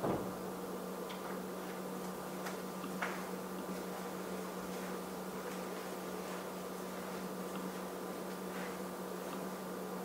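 Laptop keyboard typing: sparse, irregular light key clicks over a steady low hum. A louder knock right at the start and another about three seconds in.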